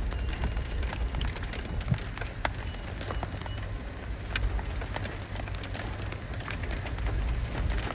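Rain pattering on a vehicle, scattered drops ticking over a steady low rumble.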